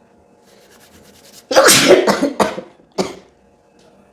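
A person sneezing hard, set off by inhaled sneezing powder: a loud explosive burst about one and a half seconds in, then a second short, sharp burst at about three seconds.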